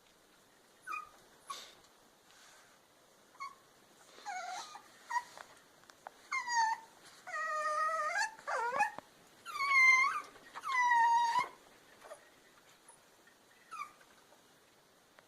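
Puppy whimpering and whining. There are short, faint squeaks at first, then a run of longer, louder, high-pitched whines in the middle, each bending in pitch, before it tails off into a few faint whimpers.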